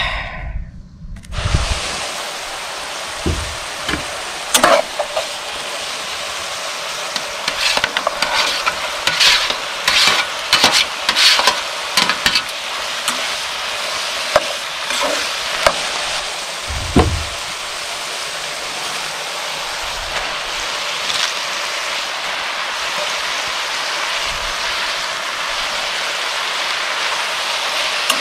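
Chicken hearts and chopped vegetables sizzling steadily in a skillet over a charcoal grill. A metal spatula clicks and scrapes against the pan as the food is stirred, mostly in the first half, with one duller thump near the middle.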